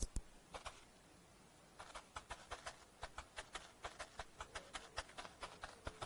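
Faint, light clicks in a quick, even patter, about three a second, beginning about two seconds in, after a single sharper click at the start.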